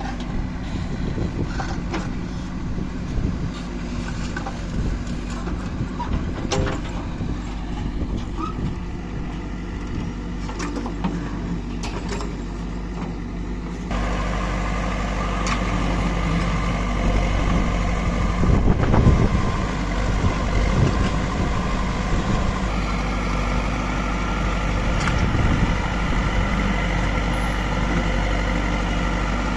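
Heavy diesel vehicle engine running steadily. About halfway through, the sound shifts abruptly to a louder, fuller engine noise.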